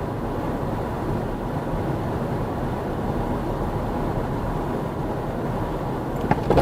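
Steady road and engine noise of a moving car, with a few sharp knocks near the end.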